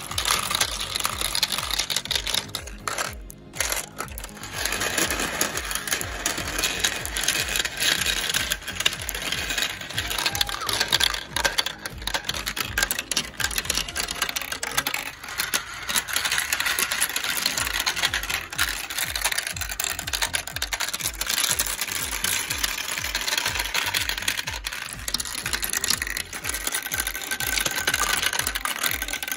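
Marbles rolling and clattering down a plastic marble run: a steady stream of small clicks and rattles as they run along the tracks and spiral and knock through a paddle wheel.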